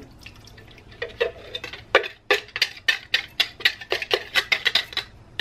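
Liquid poured into a slow cooker's crock: a quick run of small splashes and drips, about five a second from about two seconds in.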